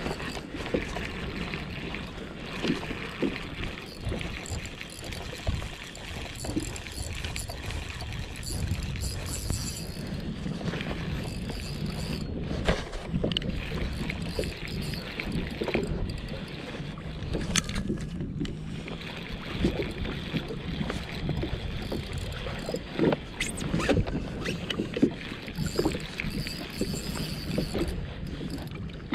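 Sea water lapping and slapping against the hull of a Galaxy Alborán FX2 fishing kayak, with a steady rumble of wind on the microphone and scattered short knocks.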